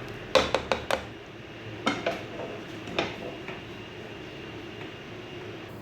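Kitchen utensils clinking against a cooking pot: a quick run of about five clinks in the first second, two more around two seconds in, and a last one at three seconds.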